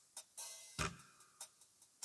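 Faint, evenly timed percussive clicks from a Casio CT-X5000 electronic keyboard. A stronger click comes about every 1.2 seconds, with lighter ticks in between, like a soft count-in beat.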